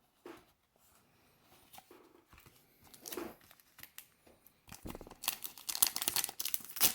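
A foil Pokémon booster pack wrapper crinkling and tearing open. A few faint rustles of card handling come first, then loud, dense crinkling over the last two seconds.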